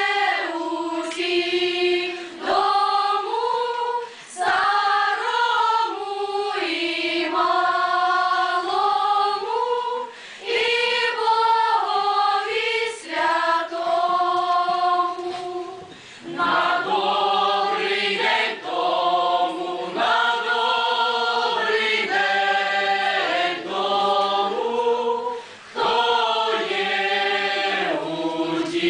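Mixed choir singing a Ukrainian folk wedding song unaccompanied, in phrases separated by short breaths. Lower voices join the higher ones about halfway through, filling out the harmony.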